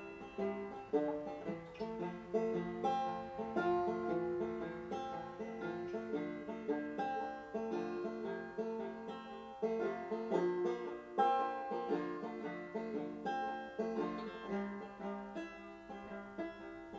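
Instrumental music: a plucked string instrument picking a continuous run of notes, with no singing.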